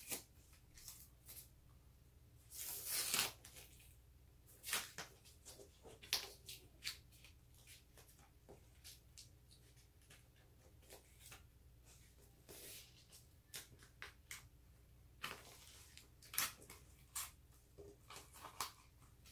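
Masking tape ripped off the roll in short pulls and torn into strips, with paper rustling and crackling as it is handled and pressed down. The longest rips come about three seconds in and again around fifteen seconds.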